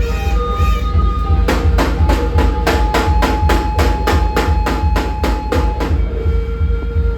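A bell struck in a fast, even series, about sixteen strokes at three to four a second, ringing on between strokes, over a steady low rumble; the strokes start about a second and a half in and stop near the six-second mark.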